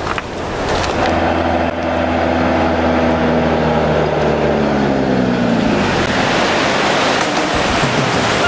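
A minivan approaching on a road and passing close by: its engine hum builds, drops in pitch as it goes past, and the tyre and road noise rises.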